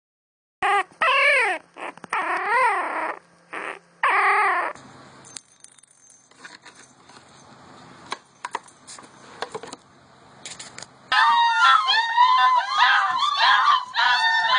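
Bloodhound puppies whining and crying in high calls that rise and fall in pitch. A few cries come in the first four seconds, then a quieter stretch with faint clicks, and from about eleven seconds several pups whine and squeal at once.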